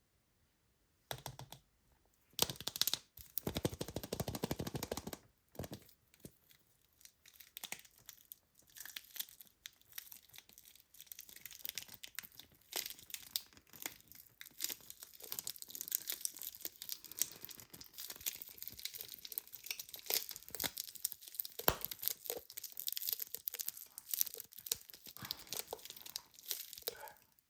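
Crinkly toy packaging being torn open and crumpled by hand: a dense crackle of many small crinkles and tears, starting about a second in and broken by a few short pauses.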